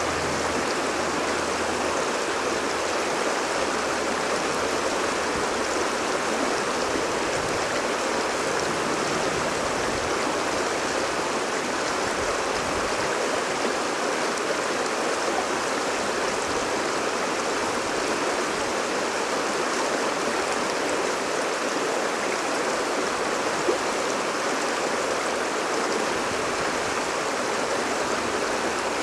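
Shallow stream rushing over rocks and through small rapids: a steady, even rush of water.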